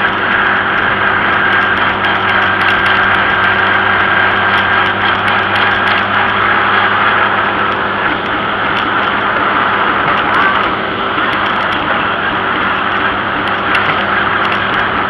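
Tractor engine running at a steady speed while the tractor drives along a paved road, an even drone with a dense rushing noise over it.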